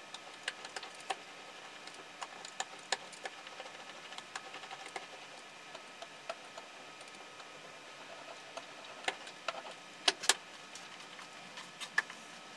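A hand brayer rolling black printing ink out on a slab, giving irregular clicks and crackles, with two louder clicks about ten seconds in.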